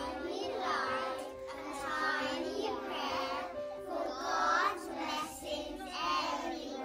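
A child singing a song in phrases of about a second each, over held keyboard chords.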